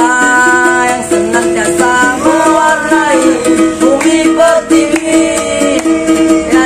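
Young men singing a song together, accompanied by a strummed ukulele.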